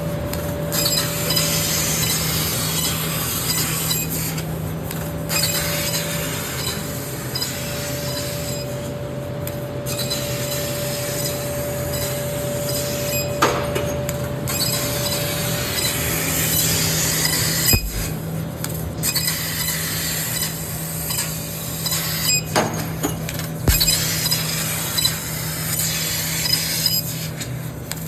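CNC wood router running with a steady hum and hiss, with a few sharp knocks scattered through.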